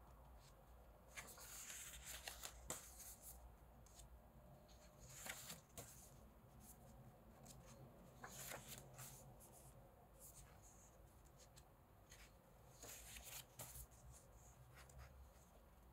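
Faint paper rustles and flicks as the pages of an album photobook are turned by hand, a few times a few seconds apart.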